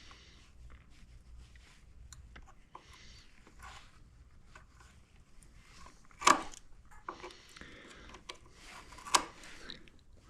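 Faint rustling and scraping of hands and small tools working on plastic parts, with two sharp clicks about six and nine seconds in.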